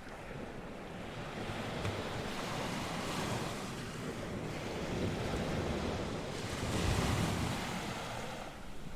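Sea waves breaking and washing on the shore, one wave building and cresting about seven seconds in, with wind blowing on the microphone.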